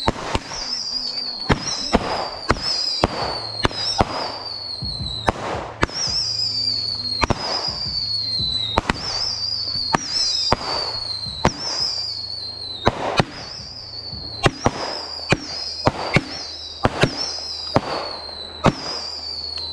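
Fireworks firing one after another: a string of whistles, each falling in pitch over about a second, mixed with many sharp cracks.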